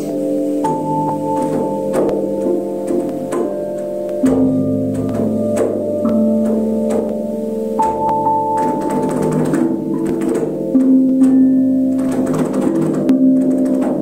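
Tuned metal flat bells (singing bells) struck with mallets one after another, their clear ringing tones overlapping and sustaining for several seconds while many lighter strikes sound in between.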